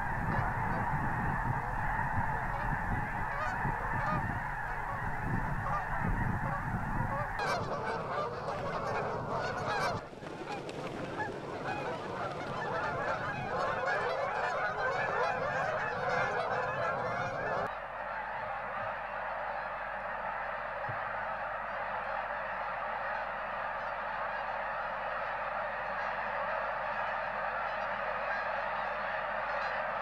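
Large flocks of geese honking, a dense chorus of overlapping calls, with Canada geese honking as they lift off in the middle. The chorus changes abruptly a few times.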